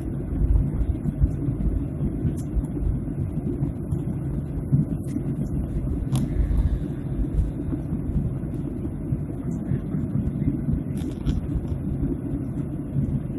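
Airliner cabin noise in flight: a steady low rumble of engines and airflow, with a few faint clicks.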